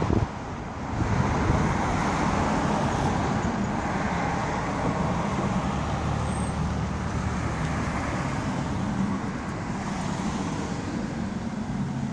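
Road traffic on a city street: motor vehicles running and driving past, a steady low engine hum under tyre and road noise. It grows louder about a second in.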